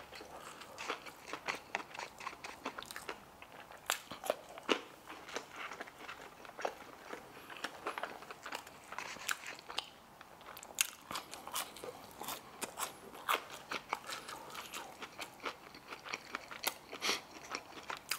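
Close-up chewing and crunching of crispy fried food, crinkle-cut fries and a fried chicken slider, with frequent sharp, irregular crunches and mouth clicks.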